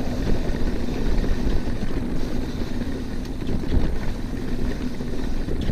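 Mountain bike rolling down a rough dirt trail: steady rumble of wind and tyre noise on the helmet camera's microphone, with a faint steady low wail from the disc brakes, which the rider thinks may be getting really hot.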